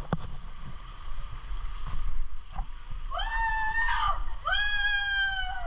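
A child's two long, high shrieks, the first about a second long and the second longer and falling in pitch at its end, as a child plays on the water slides.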